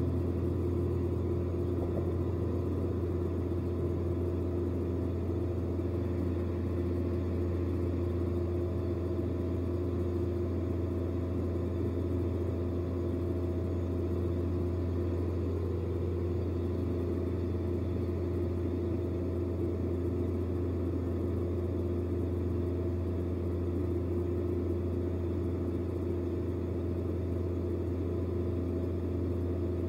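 Steady low mechanical drone with several constant hum tones, unchanging throughout.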